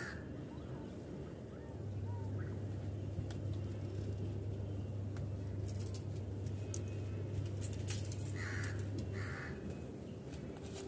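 A crow caws twice near the end, over a steady low hum that stops shortly before the calls. Light clicks and rustles come from hands pulling weeds out of potting soil.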